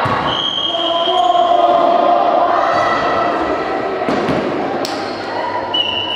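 Volleyball rally in a sports hall: the ball is struck with sharp thuds, and players and spectators call out. Short whistle tones sound near the start and again just before the end.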